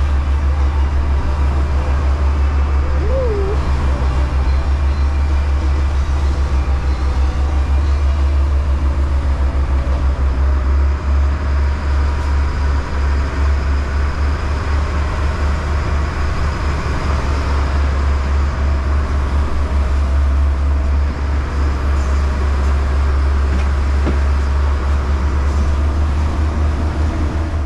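Sportfishing boat's inboard engines running steadily at cruising speed: a loud, even low drone, heard from inside the boat's cabin, with a hiss of wind and water over it.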